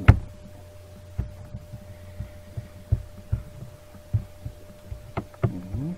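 A steady low electrical hum with a faint steady tone over it. A sharp click comes just after the start, and soft, irregular thuds follow throughout, like handling noise on the microphone. A brief voiced sound comes near the end.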